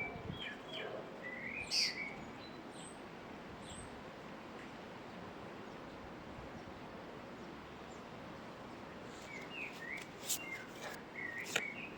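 Birds chirping over a steady background hiss: a few short calls about a second in, then again near the end, along with a few sharp clicks.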